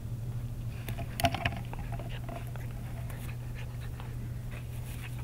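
Yellow Labrador puppy panting and chewing on a black mesh bag, the netting rustling with scattered small clicks and a brief louder rattle about a second in, over a steady low hum.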